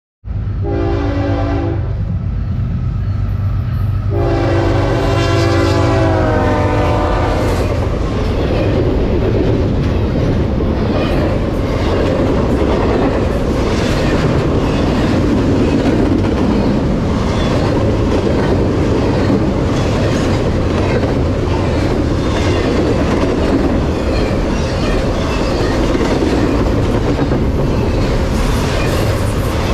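A Norfolk Southern freight's Nathan K5HL air horn sounds a short blast and then a longer one whose pitch drops as the lead diesel locomotives pass with a low rumble. Then double-stack intermodal well cars roll by, a steady rolling noise with wheels clacking over the rail joints.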